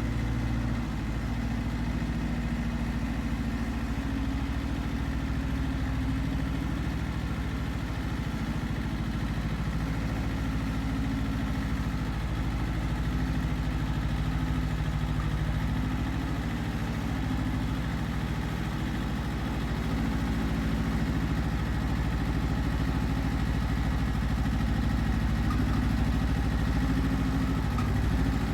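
Iseki TX1300 compact tractor's diesel engine running steadily under load while ploughing. Its note shifts a little up and down every several seconds.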